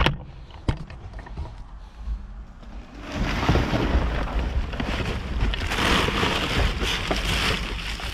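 Plastic bags and plastic bottles rustling and crinkling as trash is rummaged through by hand. Two sharp knocks come near the start, and the rustling grows loud and continuous about three seconds in.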